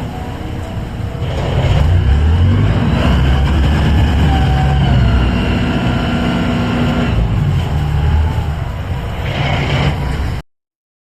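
A heavy engine runs with a loud low rumble and a faint whine above it, swelling slightly about two seconds in. The sound cuts off abruptly just before the end.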